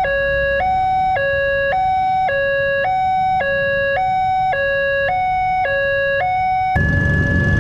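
Railway level-crossing warning alarm sounding from the pole-mounted loudspeaker: an electronic two-tone signal switching evenly between a high and a low note about twice a second. It cuts off suddenly near the end, where a louder, noisier sound with a steady tone takes over.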